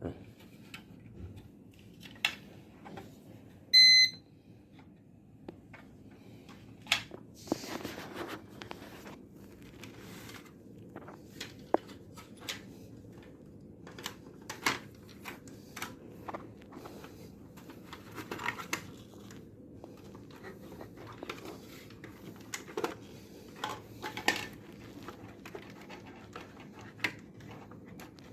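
Scattered clicks, taps and knocks from handling the parts of an uninterruptible power supply (UPS) during reassembly, with one short, loud electronic beep about four seconds in.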